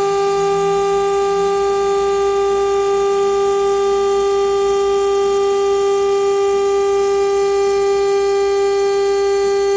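Spindle of a CNC stone countertop cutting and polishing machine running at constant speed with a loud, steady whine.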